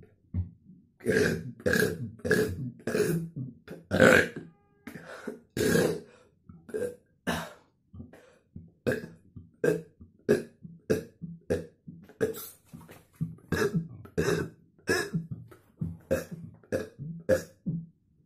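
A man burping over and over in quick succession: short, separate forced belches, about two a second, after a brief pause at the start.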